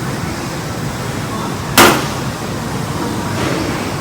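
Steady background noise with one sudden, sharp, loud bang about two seconds in, short like a knock or a hard part set down.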